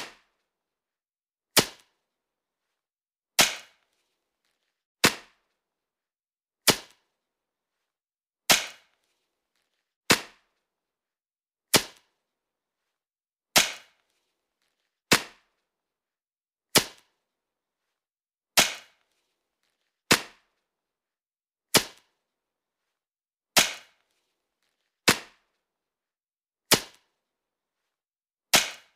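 A sharp crack repeating evenly about every 1.7 seconds, each one sudden and dying away within a fraction of a second, with dead silence between.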